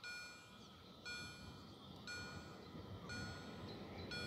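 Railway level crossing warning bell ringing, one stroke about every second, each ringing out before the next. A low rumble underneath grows louder.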